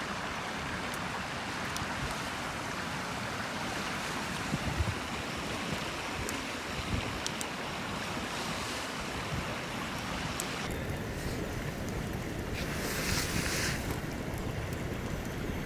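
Steady rush of a river with wind buffeting the microphone. A brief sharper hiss comes about thirteen seconds in.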